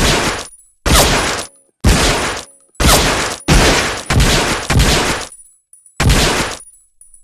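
Colt M1911A1 .45 ACP pistol firing a string of shots, each with a short echoing tail. The first few come about a second apart, several follow in quicker succession, then a last shot comes near the end.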